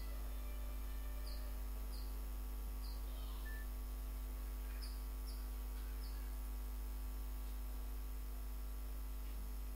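Steady low electrical mains hum, with a few faint, short high-pitched chirps scattered through the first six seconds.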